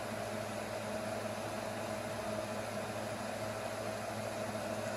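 Steady low hum with a faint hiss underneath: room tone with an appliance or electrical hum.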